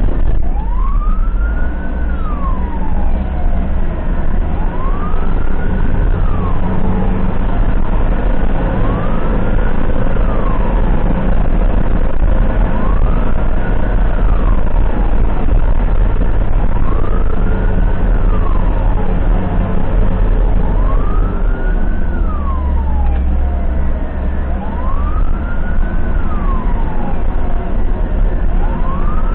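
Ambulance siren sounding a slow wail that rises and falls about once every four seconds, over steady engine and road noise.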